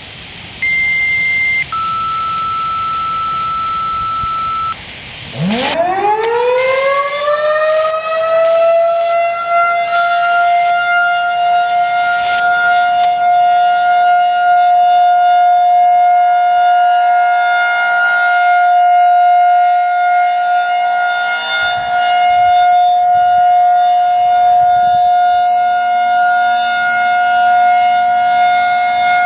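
Scanner radio hiss carrying two steady tones, a short higher one and then a longer lower one. About five seconds in, a Federal Signal 2001-SRN rotating siren winds up, rising in pitch over about four seconds to its steady alert tone. It holds the tone with slight swells in loudness as it turns.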